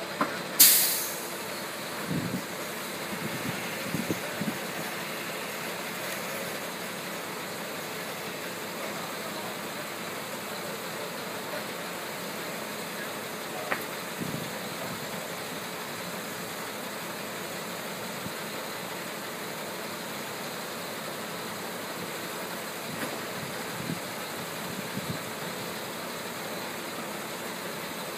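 An engine idling steadily, with one sudden loud burst of high-pitched noise about a second in and a few light knocks afterwards.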